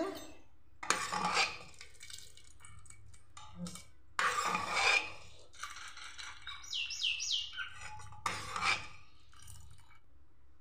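Steel ladle scraping and knocking against the inside of an aluminium pressure cooker while stirring freshly boiled split peas (matar dal), in three short bursts.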